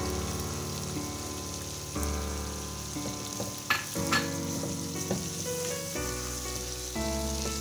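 Chicken, tomato and yogurt masala sizzling in a frying pan as it is stirred with a wooden spatula, with two sharp knocks of the spatula on the pan a little past halfway. Soft background music with sustained chords runs underneath.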